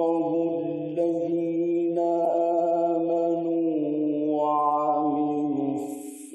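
A man reciting the Quran in slow, melodic chant, holding one long drawn-out phrase whose pitch shifts gently and which fades near the end.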